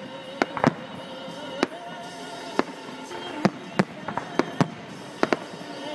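Aerial firework shells bursting: about a dozen sharp bangs at irregular intervals, some in quick clusters, over music with a wavering melody.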